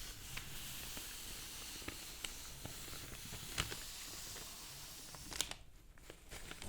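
Paper being handled close to the microphone: a steady soft rustling with a few sharp crinkles, which fades about five and a half seconds in.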